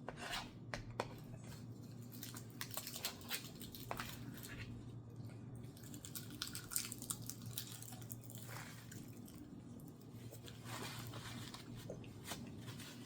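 Close-up eating sounds: chewing and biting, with scattered small clicks, over a low steady hum.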